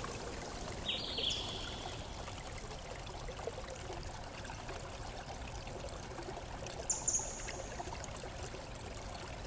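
Steady running water, like a stream, with two brief high chirps, about a second in and about seven seconds in.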